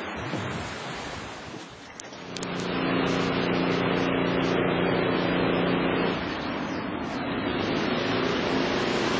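Steady rushing noise of wind and rain, with a vehicle's low, steady hum that comes in about two seconds in and drops away after about six.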